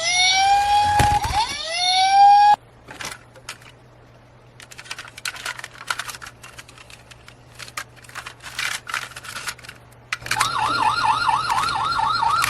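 Electronic toy siren sounds: two rising whoops at the start, then light plastic clicks and rattles, and about ten seconds in a fast warbling siren.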